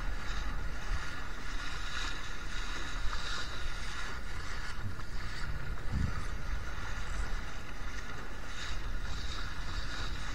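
Water rushing and splashing along the hull of a Laser 2 sailing dinghy under way in strong wind, with steady wind rumble on the microphone. There is a short low thump about six seconds in.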